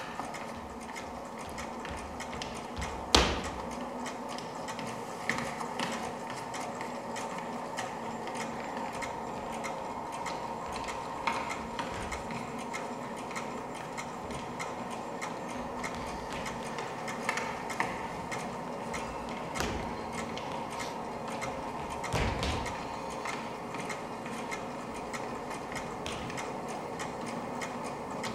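A dancer's feet and body striking and stepping on a stage floor: irregular taps and thuds, one louder thud about three seconds in, over a steady hum.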